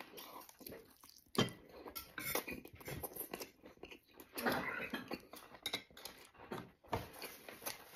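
A person chewing and smacking wet mouthfuls of red-braised pork, irregular and close to the microphone, with a few sharper clicks of wooden chopsticks against a ceramic bowl.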